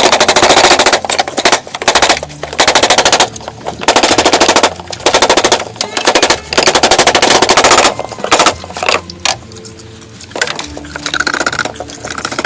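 Rapid machine-like rattling impacts in repeated loud bursts of about half a second to a second each, stopping for the last few seconds.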